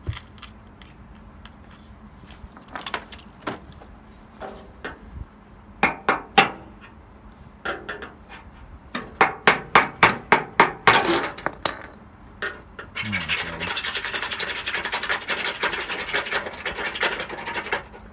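Paint being chipped and scraped off car body steel by hand, to get down to bare metal for welding. Scattered scrapes at first, then a quick run of sharp strikes, then steady rasping scraping for the last few seconds.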